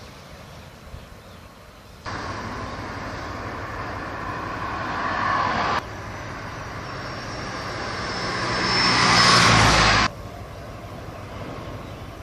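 Vehicle noise swelling as it comes closer, loudest about nine seconds in, in spliced segments that start and stop abruptly.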